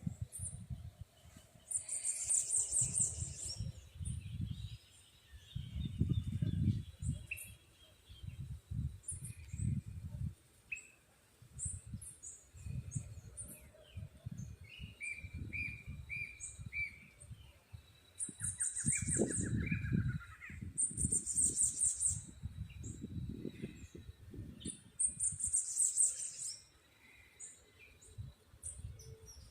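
Woodland birds chirping and calling, with short repeated notes and trills and several buzzy high bursts. Irregular low rumbling bursts come and go underneath and are the loudest part.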